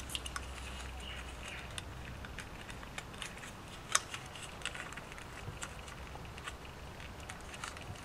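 Light clicks and taps of a plastic doorbell push-button housing being handled as its circuit board is pressed back into place, with one sharper click about four seconds in.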